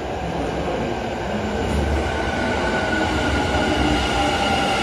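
Kintetsu 80000 series "Hinotori" limited express train arriving at an underground platform. A steady rumble of the cars runs past, and from about two seconds in a whine slowly falls in pitch as the train slows.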